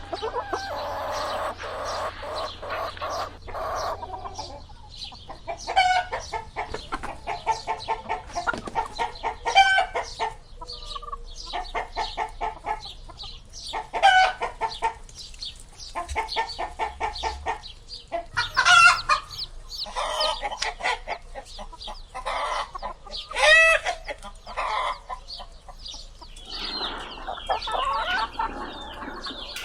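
Chickens clucking in quick runs of short clucks, with a louder, longer call rising above them every four to five seconds.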